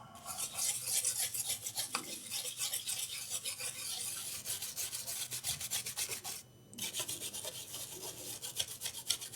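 A brush scrubbing a liquid-damaged laptop motherboard in rapid back-and-forth strokes, a dry scratchy rasping that pauses briefly about six and a half seconds in: cleaning residue off the board.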